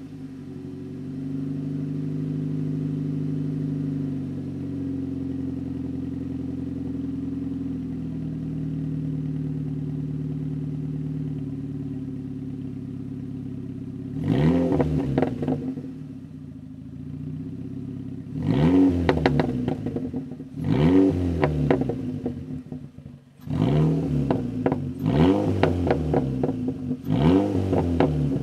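A 2007 Ford Focus ZX3's 2.0-litre four-cylinder engine, heard through its dual-tip exhaust, idles steadily just after being started. From about halfway through, a series of about six short throttle blips makes the exhaust note rise and fall quickly.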